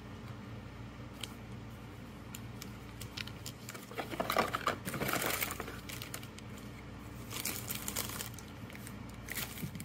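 Cardboard box inserts and clear plastic packaging crinkling and rustling as a boxed camera is unpacked by hand, with a few light clicks. The crinkling is loudest about four to five and a half seconds in and again around seven and a half to eight seconds.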